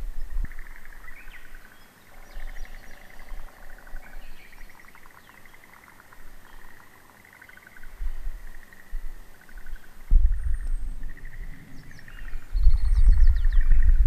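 Wild birds singing and calling: many repeated chirps and trills, with a steady held note a few seconds in. From about ten seconds in, a low rumble comes in and becomes the loudest sound.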